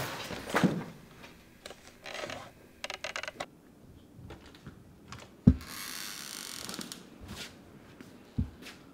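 Scuffling noise of a body dropping to a floor, then a rapid clatter and a sharp, loud clack of a double door's push-bar latch about five and a half seconds in, followed by a short rush of noise as the door swings open. A lighter knock comes near the end.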